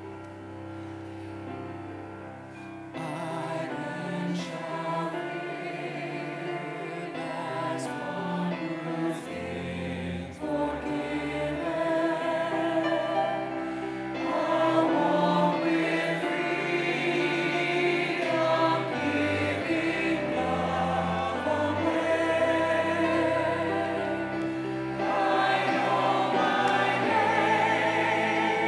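Choir and congregation singing a hymn with instrumental accompaniment. After a brief instrumental lead-in on low held notes, the voices enter about three seconds in and swell louder about halfway through and again near the end.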